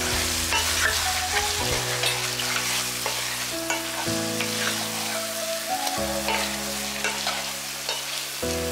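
Chicken pieces frying in ghee and oil with turmeric, chilli and coriander powders, sizzling steadily while a wooden spatula stirs them, scraping and knocking against the nonstick pan every so often. This is the masala stage, with the ground spices being fried into the chicken.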